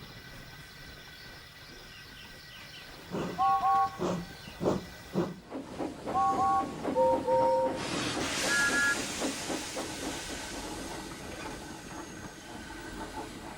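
Steam locomotive sound effects: after a few quiet seconds come loud chuffs and several short paired whistle toots at different pitches, a higher pair near the middle. Then a steady hiss of escaping steam carries on to the end.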